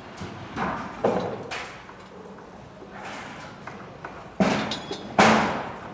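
Building construction work: a run of irregular heavy bangs and knocks, each ringing out briefly. The loudest two come near the end.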